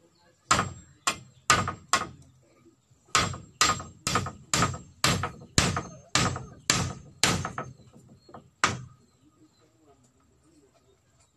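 Repeated sharp blows of a hand tool, like hammering: four quick strikes, a short pause, then about nine more at roughly two a second and a final strike near the end.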